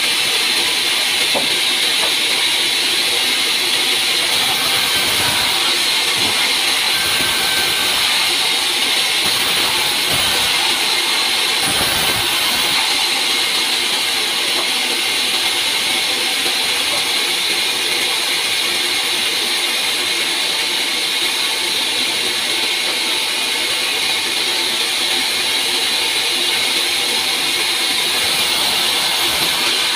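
Large vertical band saw running steadily and ripping logs lengthwise into beams: a loud, continuous hiss of blade and sawdust.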